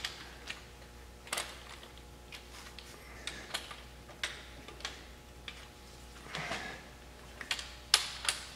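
Torque wrench on cylinder head bolts, giving irregular sharp metallic clicks, about one or two a second, as the bolts are brought to 11 foot-pounds in a crisscross sequence.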